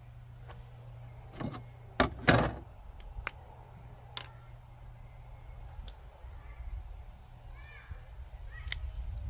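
A few sharp clicks and knocks of hand work with a tube of Lexel sealant and a plastic deck plate, the loudest a close pair about two seconds in, over a low steady hum.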